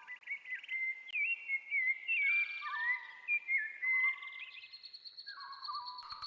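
Bird-like whistled chirps and calls, several overlapping, with quick rising and falling notes.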